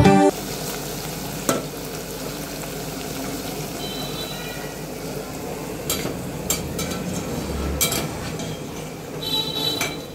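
Gram-flour pakoras deep-frying in hot oil with a steady sizzle, and a spoon knocking lightly against the pan a few times as they are turned.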